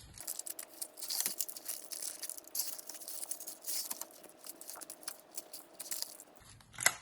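Rubber spatula smoothing brownie batter across a baking pan: a run of soft, irregular scrapes and small clicks.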